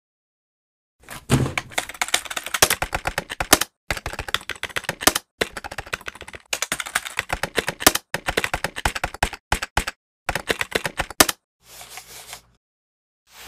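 Rapid typing on a computer keyboard, with keystrokes clattering in several fast runs separated by short breaks.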